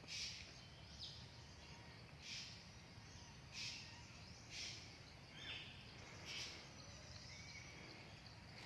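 Faint crunching steps on dry ground, irregular, roughly one every second, with a few short bird chirps in between.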